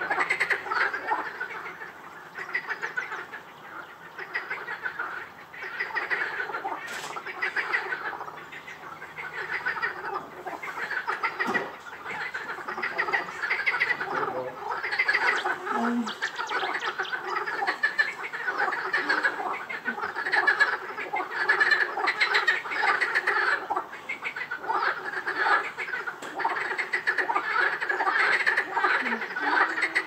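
A chorus of marsh frogs calling over one another, a dense stream of rapid, rattling croaks that swells and fades in waves, with a brief lull a few seconds in.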